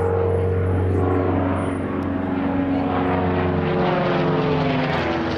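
Propeller airplane flying overhead, its engine drone steady and slowly falling in pitch as it passes.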